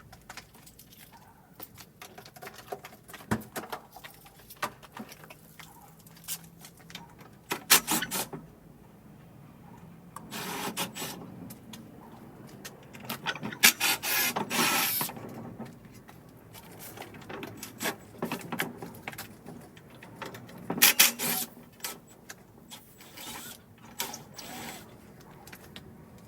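Intermittent clicks, ratcheting and clattering metal from hand tools undoing the nuts and bolts of an old steel Ridgid workbench, with a few louder bursts of rattling metal.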